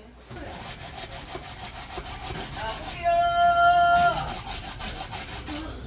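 Raw potato being grated by hand on a flat metal grater: a steady, rapid rasping of strokes. About halfway through, a brief held high tone sounds over it for a little over a second.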